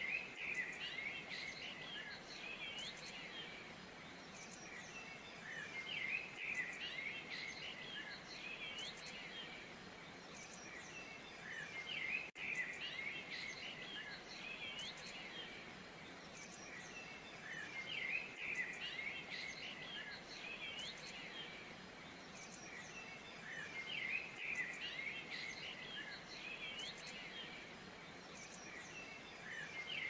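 Small songbirds chirping and twittering in bursts every few seconds over a steady background hiss of outdoor ambience.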